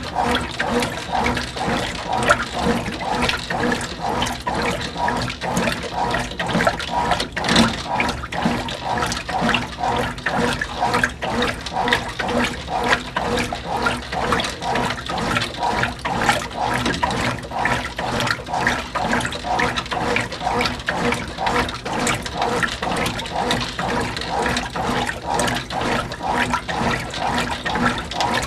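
A 1991 Whirlpool WorldWasher washing machine on its rinse cycle, its agitator churning a large load in water with a steady rhythmic sloshing.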